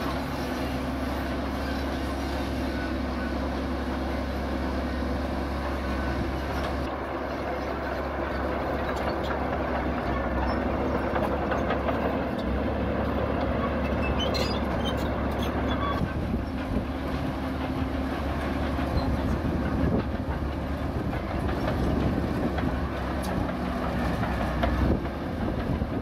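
Zoomlion ZD160S-3 crawler bulldozer working: its diesel engine runs steadily under load while its steel tracks clank, with sharper clanks near the end.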